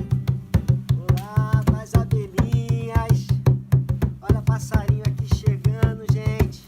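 Samba de roda music: a fast, steady percussion beat with a melodic line, bending in pitch, coming in over it about a second in.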